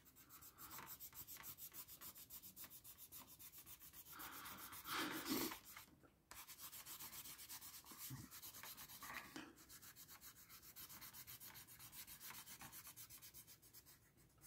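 Coloured pencil shading hard on paper: faint, quick back-and-forth scratching strokes as the background is laid in dark, with a louder rub about five seconds in.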